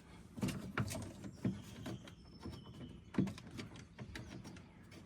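Scattered metal clicks and knocks of a hand wrench working loose the 12 mm bolts that hold a side-by-side's shifter assembly, a few sharp taps spaced about half a second to a second apart.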